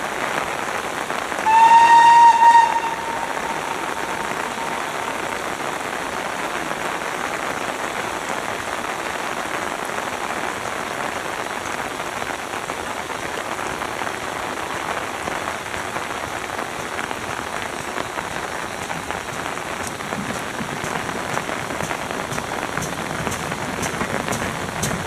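Steady rain falling on an umbrella over the microphone. Near the start, the approaching GWR Manor-class steam locomotive 7812 sounds its whistle once: a single steady note about a second long.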